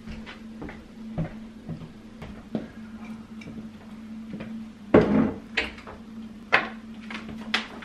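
Kitchen handling sounds: scattered clicks and knocks of cupboard doors and containers, with a louder thump about five seconds in and a few sharp ticks after it, over a steady low hum.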